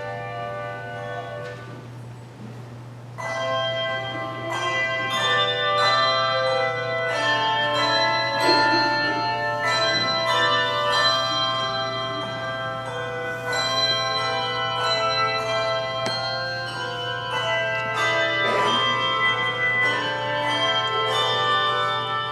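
Handbell choir playing a piece: many tuned handbells struck and left ringing together in chords and melody. The ringing thins out about two seconds in, then picks up again fuller about a second later, over a steady low hum.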